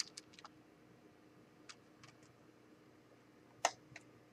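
Light clicks and taps of a metal steelbook Blu-ray case being handled and set down, with a sharper tap about three and a half seconds in, over a faint steady room hum.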